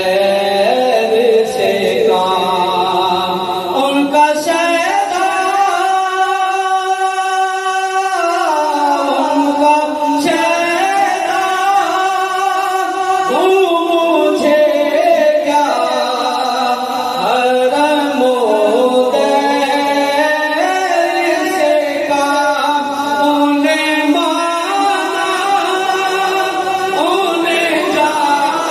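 A man singing a naat, Islamic devotional poetry, solo and unaccompanied, with long drawn-out held notes.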